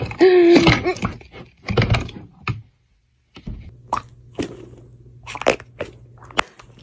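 A short pitched cry, then after a break a few sharp clicks and plops over a low hum.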